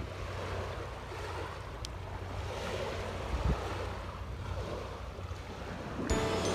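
Small waves washing onto a sandy beach, with wind rumbling on the microphone and a single light knock about three and a half seconds in. Background music comes back in near the end.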